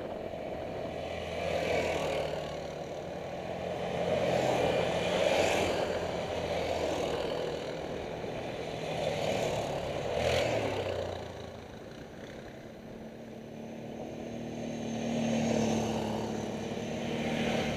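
Quad bike (ATV) engines passing one after another on a gravel road, each growing louder as it comes close and fading away, with the pitch dropping as one goes by about ten seconds in.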